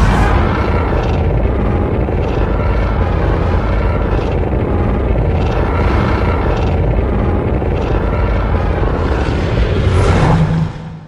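A loud, steady rumbling film sound effect that starts abruptly and fades out near the end.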